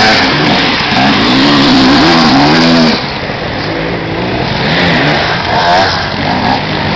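Off-road enduro motorcycle engines revving and easing off as the bikes pass, the pitch rising and falling with the throttle. Loudest for the first three seconds, then quieter as another bike works along the track.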